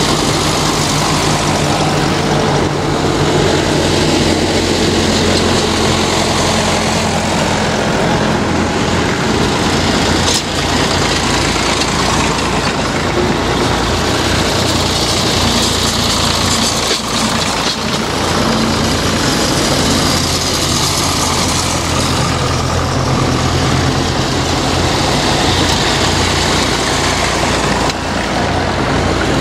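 Vintage tractor engines running as the tractors drive past one after another. The engine note shifts each time a different tractor comes by.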